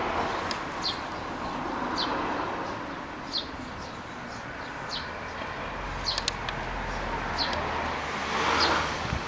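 A bird repeating a short, high, falling chirp about once every second or so, over a steady outdoor background hiss.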